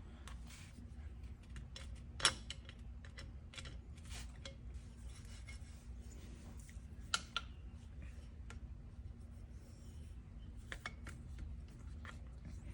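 Small metal starter parts clicking and clinking as they are handled and fitted together by hand, with two sharper clicks about two seconds in and about seven seconds in, over a steady low hum.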